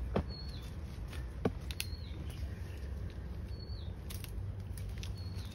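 A bird's short high chirp, repeated about every second and a half, over a low steady rumble, with a few faint knocks as soil is worked in around the buried bucket.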